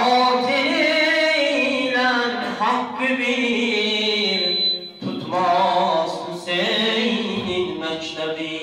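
A solo male voice singing an unaccompanied Shia religious eulogy (madh) into a microphone, with long, wavering held notes and a short break for breath about five seconds in.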